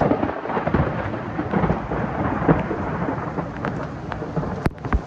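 Heavy rain pouring down, with hailstones pelting in many sharp ticks over a low rumble. A sharper knock comes shortly before the end.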